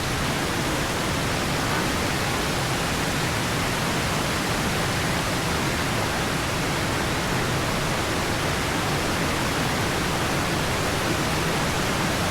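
Steady rushing of water falling at the foot of a waterfall, an even hiss with no breaks.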